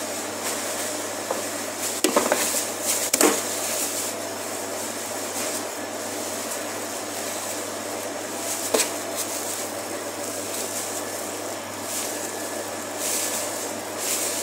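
A butcher's knife working a raw beef topside on a cutting board: a few sharp knocks about two to three seconds in and again near nine seconds, and scraping near the end, over a steady fan-like hum.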